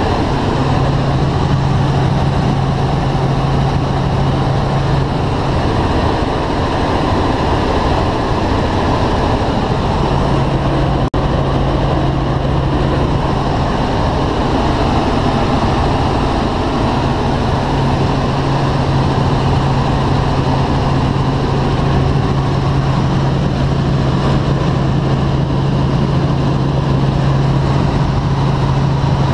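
Helicopter in cruise flight heard from inside the cabin: a loud, steady drone of engine, rotor and gearbox with a constant low hum. One brief dropout about a third of the way through.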